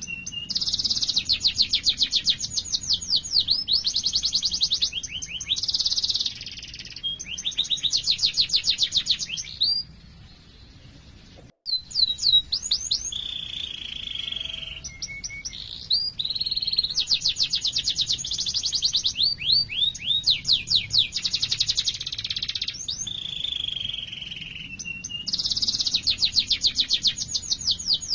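Domestic canary singing, with long, fast rolling trills and sweeping whistled notes in phrases, broken by a short pause about ten seconds in.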